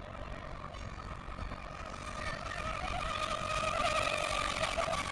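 Electric RC rigger boat running at speed, its brushless motor and propeller giving a steady high whine that grows louder about two-thirds of the way through.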